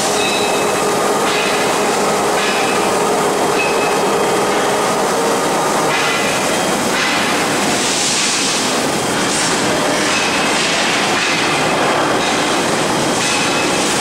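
Rebar hot-rolling mill running: the roll stands and roller conveyor make a steady, loud mechanical din as a steel bar passes through, with short high metallic squeals now and then.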